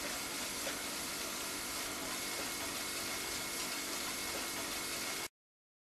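Kärcher pressure washer running steadily as it flushes a downpipe through a pipe-cleaning hose, with dirty water gushing out of the downspout outlet. The sound cuts off abruptly about five seconds in.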